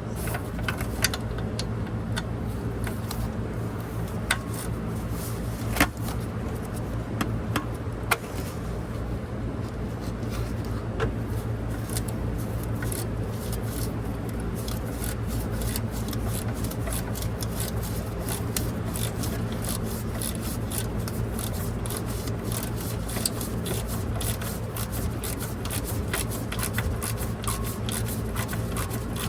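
Quarter-inch ratchet clicking and metal wrenches scraping and clinking as a seat shock's bottom bolt nut is loosened, over a steady low hum. A few sharp clinks come in the first half, and the ratchet clicks come thick and fast in the second half.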